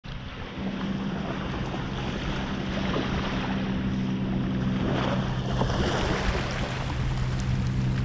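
Shallow wavelets washing up over wet sand at the water's edge, swelling twice in the middle, over a steady low motor hum.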